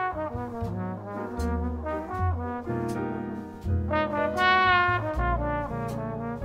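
Jazz background music with a brass lead playing a melody over a bass line, with cymbal strokes.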